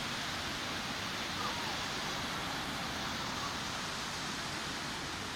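Sea surf breaking on a beach, a steady rushing wash without distinct single crashes.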